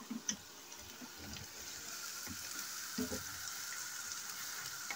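Chopped onions sizzling steadily in oil in a frying pan as they are browned, with a few light clicks of a wooden spoon stirring them.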